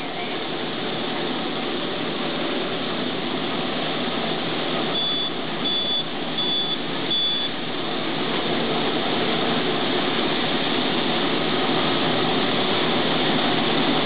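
Rice-processing machinery (huller and grain handling) running with a steady, loud mechanical din. About five seconds in, a machine beeper sounds four short beeps in quick succession.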